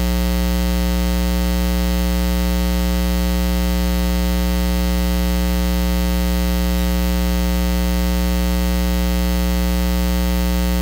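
Steady electrical mains hum with a buzzy stack of many overtones, unchanging in level and pitch throughout.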